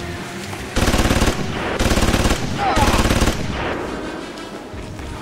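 Machine-gun fire sound effect: three rapid bursts of automatic fire, the first about a second in and the others following close behind.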